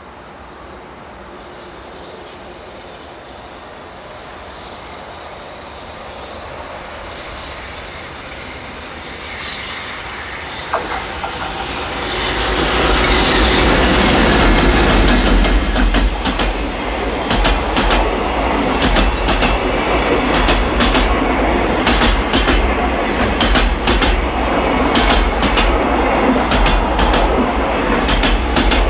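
JR Freight EH500 electric locomotive hauling a container freight train, approaching and growing steadily louder, then passing close about halfway through. The container wagons then roll past in a steady stream of clickety-clack from wheels over the rail joints, over a heavy low rumble.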